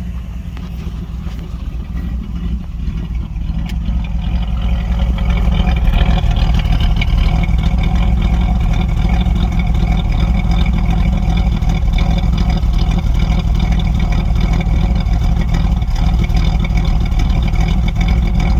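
A 1984 Chevrolet Monte Carlo's engine idling, heard at the exhaust tailpipe, growing louder over the first six seconds and then steady. The owner suspects this exhaust note of being a misfire.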